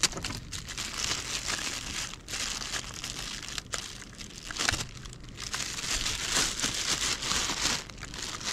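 A clear plastic bag and foam wrapping crinkling and rustling as a riflescope is pulled out of its packaging by hand, in an irregular run of crackles with no pause.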